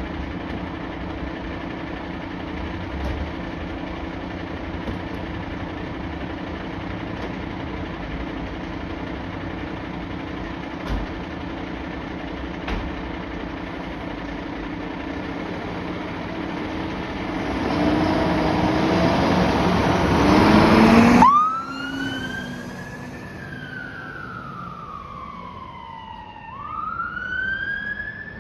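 Mercedes Atego fire engine's diesel engine running, growing louder from about 17 seconds in, then cutting off abruptly about 21 seconds in. A siren wail follows, rising and falling slowly in pitch.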